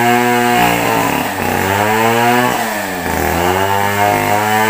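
Two-stroke chainsaw running hard, its engine note sagging and climbing back again several times, as when the chain bogs in wood and picks up speed.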